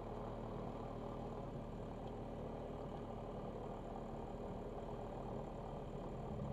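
Van's RV light airplane's piston engine and propeller running steadily at low, idle-range power while taxiing, heard from inside the cockpit.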